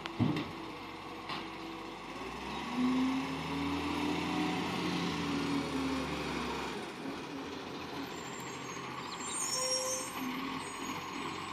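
Garbage truck working: a sharp knock just after the start, then the engine revs up for about four seconds and drops back, with a brief high hiss of air a little before the end.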